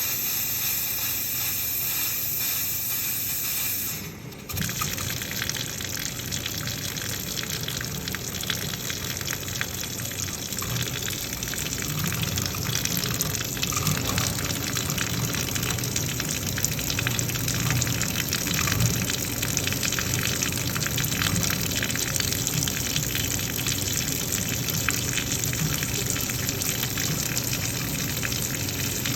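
Water gushing steadily from a water heater being drained, briefly dropping off about four seconds in, then resuming.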